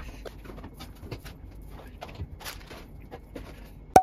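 Small objects being handled and put away on a table: irregular light clicks, knocks and rustles. Near the end there is a single sharp, loud hit with a short ring, and then the sound cuts off.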